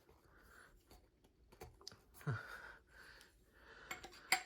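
Light clicks and taps of a ceiling fan's metal coupling and set screws being handled, with faint breathing and a short grunt about halfway. A sharper click near the end is the loudest sound.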